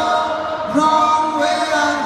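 Live pop band performing: sung notes held and gliding over light accompaniment.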